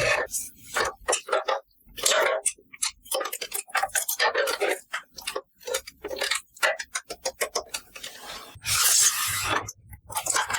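Toy food pieces being handled and set in place: a quick, irregular run of light clicks and taps, with a brief rustle about nine seconds in.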